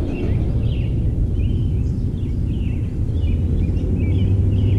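Steady low drone of the distant skywriting plane's engine over a low rumble, the hum growing stronger about three seconds in. Small birds chirp about twice a second.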